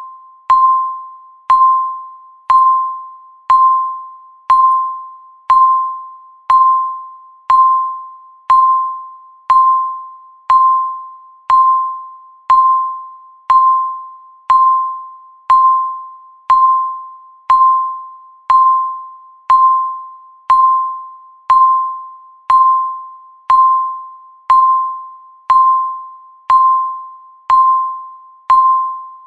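Countdown timer beeping once every second: a short electronic tone, always the same pitch, struck sharply and fading away before the next.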